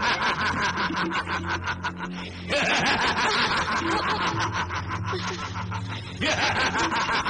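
A voice laughing in long runs of rapid 'ha-ha' pulses, broken by short pauses about two seconds and six seconds in.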